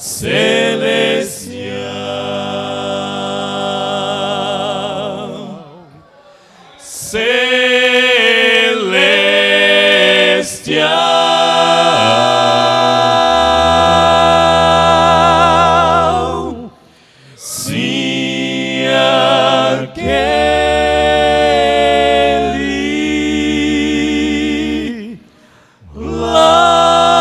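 Male vocal quartet singing a slow Portuguese gospel song in close harmony through microphones, holding long chords with vibrato. The phrases are separated by short breaks for breath.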